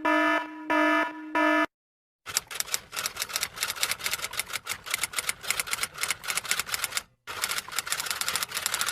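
Three short electronic beeps, then rapid typing: a quick, irregular run of keystroke clicks that pauses briefly about seven seconds in and then resumes.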